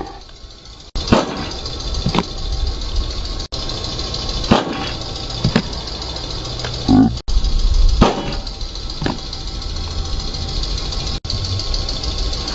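Repeated sharp smacks of a baseball into a fielder's glove during handling drills, about one a second, over a steady low rumble and high hiss. The sound cuts out briefly several times where clips are joined.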